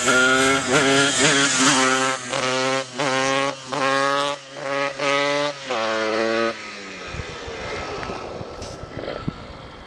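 Yamaha 125 cc two-stroke motorcycle engine (YZ125 cylinder on a DT125 bottom end) revving in short repeated bursts, pitch rising with each throttle opening about every half second. It drops away abruptly about six and a half seconds in, leaving only faint noise.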